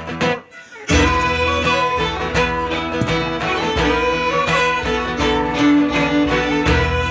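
Live acoustic band playing a march from Northern Ireland on fiddle and guitar. The guitar breaks off briefly just under a second in, then fiddle and guitar come in together with a steady beat.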